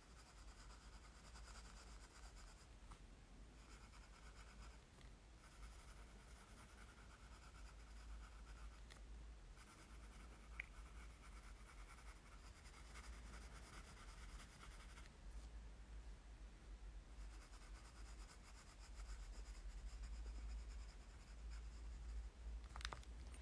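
Graphite pencil shading on diary paper: faint, quick scratching strokes in stretches of a few seconds, with short pauses between them.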